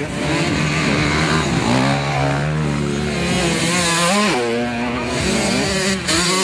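Motocross motorcycle engines revving, more than one bike at once, the pitch climbing and dropping as the throttle is worked and gears change, with one sharp drop and climb about four seconds in.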